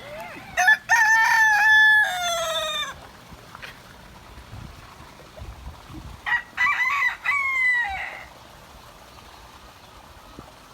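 A rooster crowing twice: one long crow near the start and a second about six seconds in.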